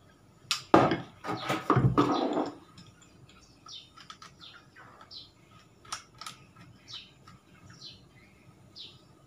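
Clicks and clatter of a handheld smartphone gimbal's plastic body and tripod grip being handled, loudest in the first couple of seconds. Then a bird chirps briefly, several times, about once a second, with a few faint clicks between.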